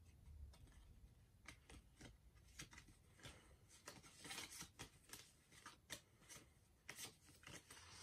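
Faint scattered clicks and short rustles of trading cards being handled.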